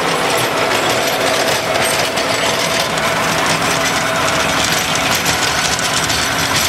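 Tractor engine running steadily under load while its PTO-driven Maschio rotary tiller churns through grassy soil, the blades giving a dense, continuous rattling clatter.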